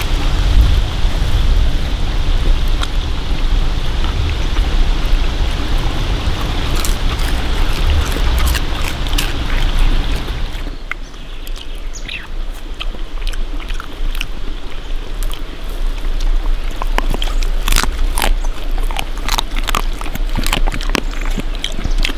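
A stream running, with small crackles of roasted chicken being torn apart by hand. About eleven seconds in, the water sound drops away, and a dog eating chicken takes over with a run of sharp, wet chewing and smacking clicks that grow busier toward the end.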